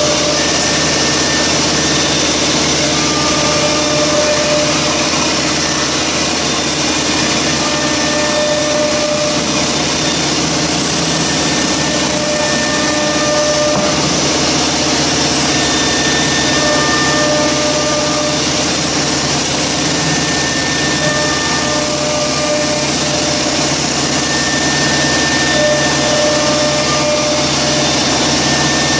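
OMNI 1530 ATC CNC router with a circular saw blade on its spindle, running with a loud, steady machine noise; a thin high whine fades in and out every few seconds.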